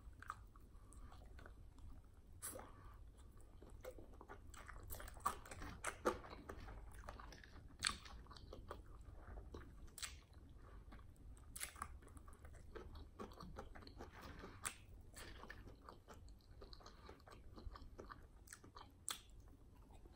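Close-up eating sounds of fried chicken wings: chewing, smacking and crunching in irregular short clicks, a few louder bites standing out.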